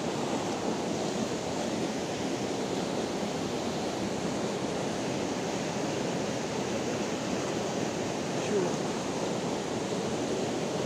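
Shallow rocky stream rushing over stones: a steady wash of running water.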